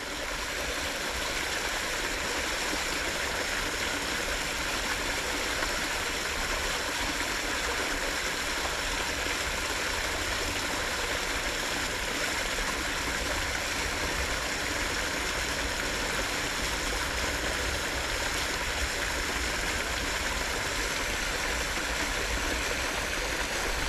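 Flowing water rushing steadily and evenly, with no breaks.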